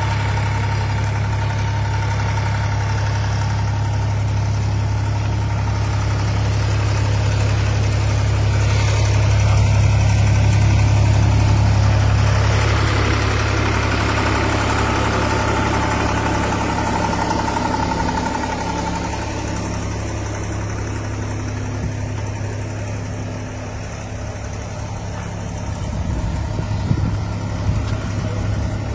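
Milling machine running with a steady low motor hum and a fainter whine above it, with a few short knocks near the end.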